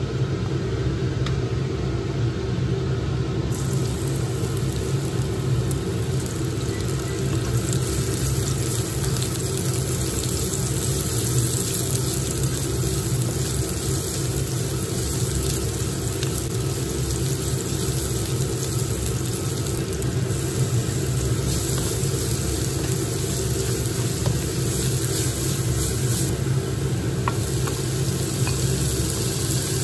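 Sliced red onion and garlic sizzling in hot oil in a nonstick wok and being stirred with a spatula; the sizzle starts a few seconds in and grows stronger. A steady low hum runs underneath.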